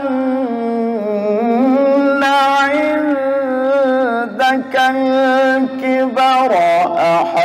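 A male qari reciting the Quran in the melodic tilawah style, holding long ornamented notes that bend up and down, with a short break about four and a half seconds in.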